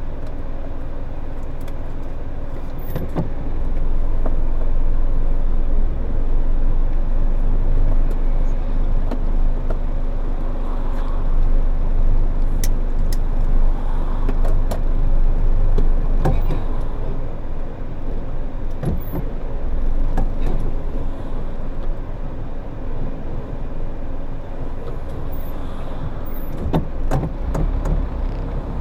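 Car driving: steady road and engine rumble that gets louder about four seconds in, with scattered clicks and rattles through it.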